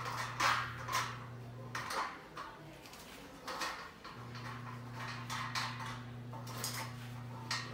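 Computer-table parts and fittings knocking and clinking as they are handled and fitted together during assembly, a few sharp knocks at irregular intervals. Underneath runs a steady low hum that stops about two seconds in and comes back about four seconds in.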